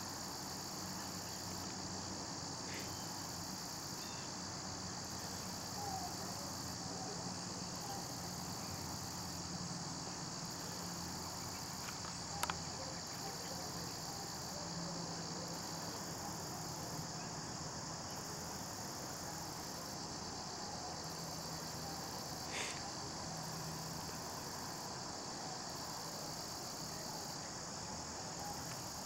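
Steady high-pitched chorus of insects such as crickets trilling without a break, with two sharp clicks, one about halfway through and one later on.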